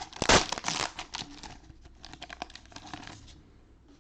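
Crinkling and crackling of a plastic cellophane wrapper on a trading-card cello pack being handled, loudest in the first second, then lighter crackles that stop a little past three seconds in.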